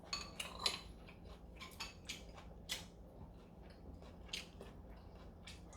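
Faint, scattered clicks and taps of eating utensils against dishes during a meal of soup, denser in the first few seconds, with a faint steady hum underneath.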